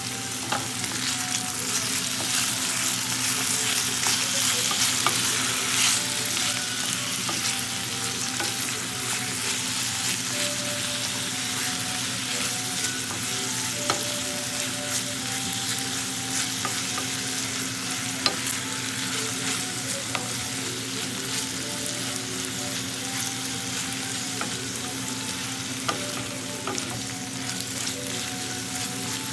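Food sizzling as it fries: a steady crackling hiss with many small pops. A steady low hum runs beneath it.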